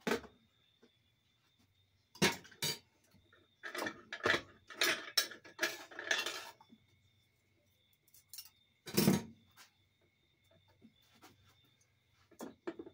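Metal parts of a 4L60E automatic transmission's low-reverse clutch pack clinking and clattering as they are taken out of the case, in several short clusters of clinks with pauses between and one heavier knock later on.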